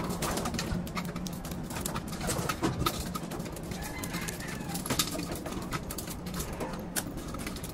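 Racing pigeons cooing, a low continuous murmur, with scattered sharp clicks and taps among the birds.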